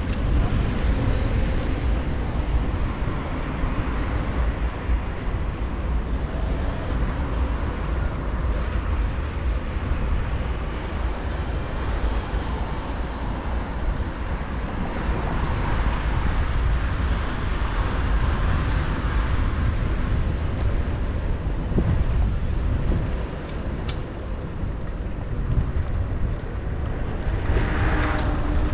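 Wind rushing over the microphone of a moving bicycle, a steady low rumble, with city traffic around it.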